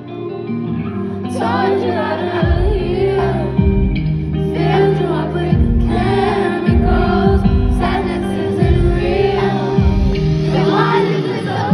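Live pop concert music heard through an arena sound system: singing over a sustained backing track, with a heavy bass coming in after about two seconds.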